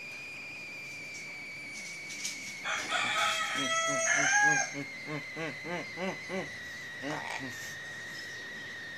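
Philippine crow calling close by: a loud, harsh call about three seconds in, then a run of short repeated calls, about three a second. A steady high whine runs underneath.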